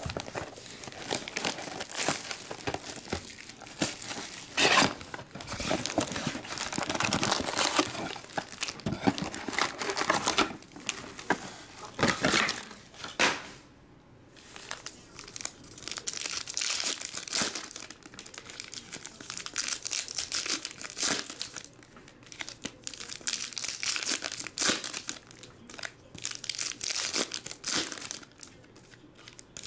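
Trading-card foil packs and their wrapping being torn open and crinkled by hand, in irregular crackling bursts with a short pause about halfway through.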